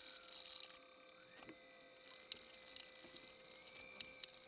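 Faint scraping and a few sharp clicks of a wooden stir stick working epoxy, thickened with filler toward a peanut-butter consistency, in a plastic coffee canister; two clicks come close together near the end. A faint high tone slides slowly in pitch underneath.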